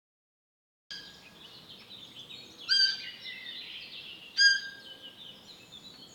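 Two short, shrill deer calls, about a second and a half apart, over a steady background of birdsong. The sound starts about a second in.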